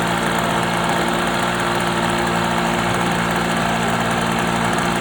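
Small RC model engine idling steadily at an even pitch while it is being tuned, having just dropped from high revs.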